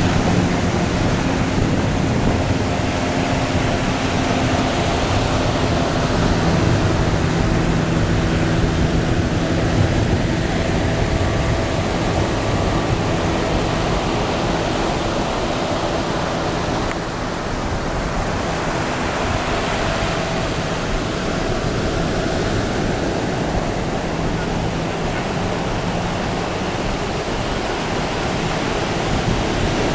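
Surf washing and breaking on a beach, a steady rushing noise, with the engine of a speedboat running just offshore heard as a steady hum over it.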